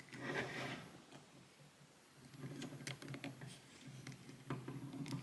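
Small clicks and rustles of a plastic action figure's joints being turned and posed by hand, with a brief handling rustle about half a second in.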